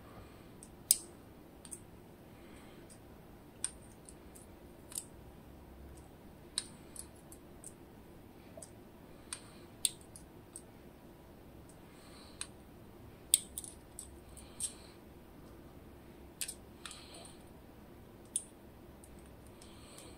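Irregular small clicks and taps of the DOM IX Twido lock's driver pins and other small metal parts as they are handled and laid out after disassembly.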